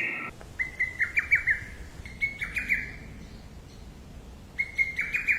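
A songbird singing three short phrases of quick repeated chirping notes, the first about half a second in, the last near the end.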